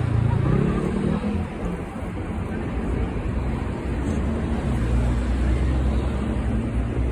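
A steady low engine rumble, with a shifting hum in it during the first second or so.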